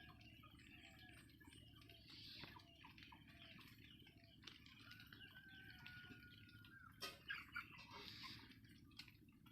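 Faint birds chirping and calling, with one longer held note in the middle and a few sharp clicks about seven seconds in.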